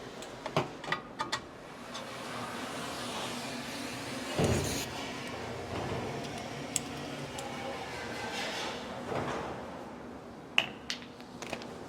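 A shop vacuum being pulled out and set up: knocks and clatter near the start and again near the end, with a steady hiss between and a brief louder swell about four seconds in.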